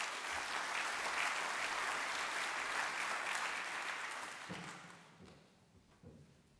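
Audience applauding, a steady clapping that fades out about four to five seconds in.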